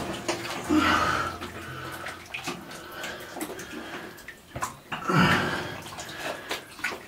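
Water sloshing and splashing around a person floating in a drysuit in a flooded mine tunnel, in uneven swells as he moves.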